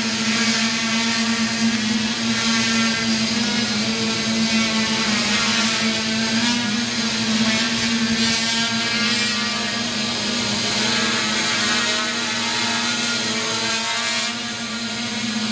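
AeroBerry quadcopter's electric motors and propellers running as it hovers: a steady buzzing drone whose pitch wavers slightly as the motors adjust speed.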